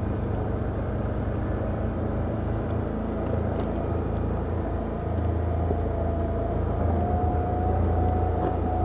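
Can-Am Outlander ATV engine running steadily as the quad rides along a trail, a low rumble with a faint whine that rises a little and gets slightly louder in the second half.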